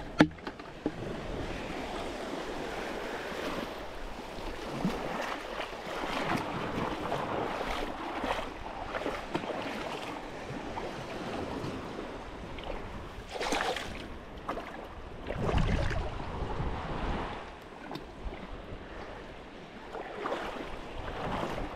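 Small waves washing over a rocky shoreline, with wind buffeting the microphone. There are two louder surges past the middle.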